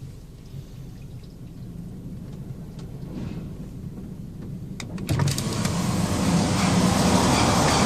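Automatic car wash heard from inside the car: a low steady hum, then about five seconds in a sudden loud rushing noise that builds as the wash machinery starts on the car.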